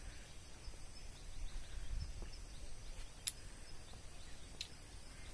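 Faint outdoor ambience: a low steady rumble under a soft even noise, with two sharp clicks about a second apart in the second half.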